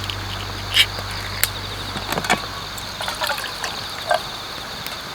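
Night insects trilling steadily in a high, pulsing band, with scattered short clicks and knocks of gear being handled.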